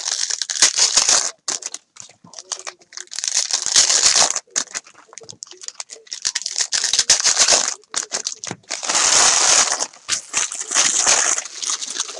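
Foil trading-card pack wrappers crinkling and tearing as packs are ripped open by hand, in several loud rustling bursts with cards clicking between them.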